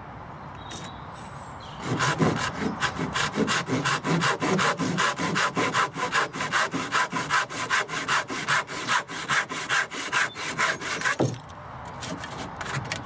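Hand saw cutting through a timber batten: about nine seconds of brisk, even strokes, four or five a second, ending in a knock as the cut finishes.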